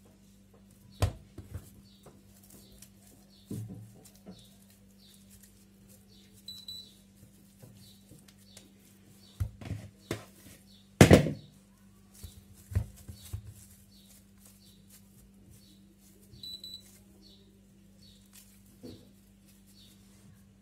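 Hands squeezing and shaping soft oiled dough into balls, with irregular thumps and knocks as the dough and a plastic bowl are set down on the counter; the loudest knock comes about eleven seconds in. A steady low hum runs underneath.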